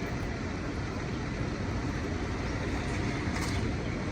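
Steady low rumble of a fire truck's diesel engine idling, with one brief faint hiss about three and a half seconds in.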